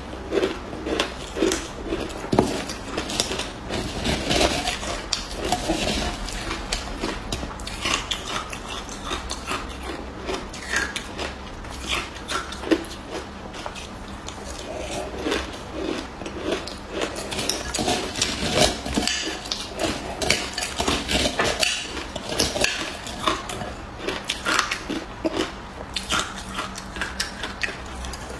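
Close-up crunching and chewing of frozen shaved ice, a dense run of crisp, irregular crunches, with a spoon clinking against a dish.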